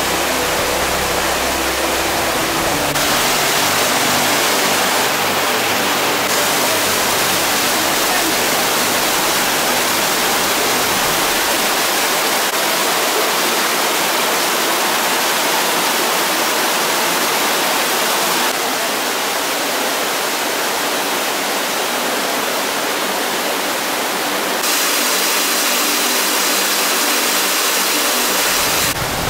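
Rushing water of a mountain stream and small waterfalls, a steady hiss that steps up or down in level several times.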